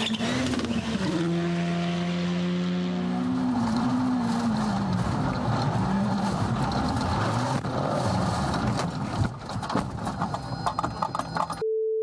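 Rally car engines at high revs: the pitch is held steady, then rises and falls repeatedly as the car is driven hard, followed by a noisier stretch of engine and road noise with clicks and rattles. Near the end the sound cuts out briefly to a short steady tone.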